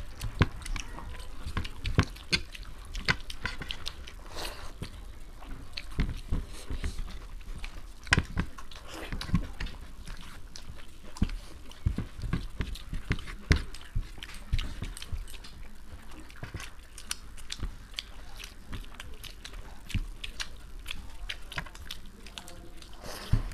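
Close-miked eating by hand: chewing and mouth clicks, with fingers mixing rice pulao on the plates, as a stream of short, irregular clicks and crackles.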